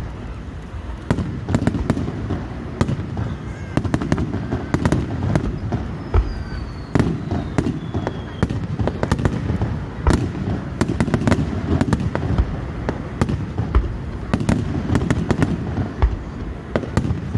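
Aerial fireworks bursting in quick irregular succession: many sharp bangs and crackles over a low rumbling background. A thin whistle falls in pitch about six seconds in.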